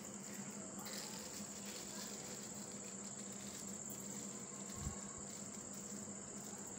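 Faint rustling and handling of a plastic sheet as a filled paratha is rolled up by hand on a plate, with a soft bump about five seconds in. A steady high-pitched trill runs underneath throughout.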